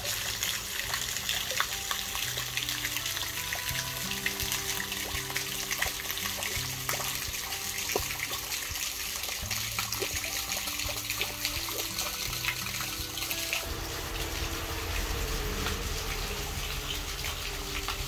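Fountain water falling in thin streams and splashing steadily into a shallow round stone basin, with soft background music underneath. The splashing thins about two-thirds of the way through as a low rumble comes in.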